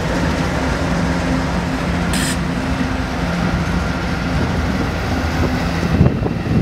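Canadian Pacific GE ES44AC diesel locomotive hauling a freight train past at speed: a steady low engine hum over the rumble of the train on the rails, with a short high hiss about two seconds in. Wind buffets the microphone near the end.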